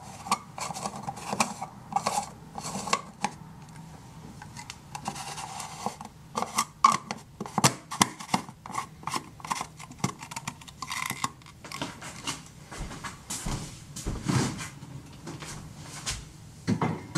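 Kitchen handling noises: a lid being twisted onto a glass jar of green juice, with irregular clicks, knocks and scraping of glassware and dishes.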